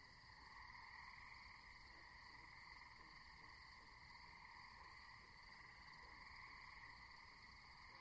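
Faint, steady night chorus of frogs and insects, an unbroken wall of many overlapping calls.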